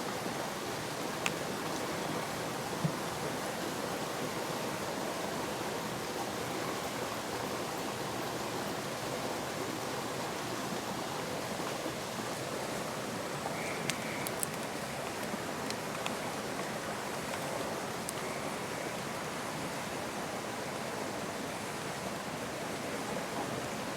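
Steady wash of water noise from rain and a rain-swollen creek, with a few faint ticks.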